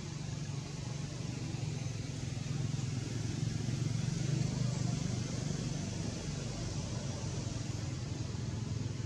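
Steady low rumble of a motor vehicle engine running, growing a little louder a few seconds in and then holding.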